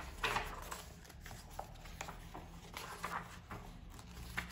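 Paper and cardboard album contents being handled: soft, scattered rustles and light taps.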